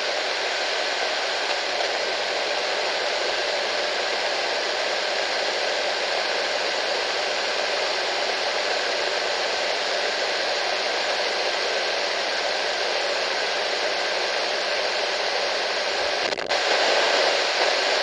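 Radio static: a steady hiss between stations, which breaks off sharply about sixteen seconds in and comes back a little louder.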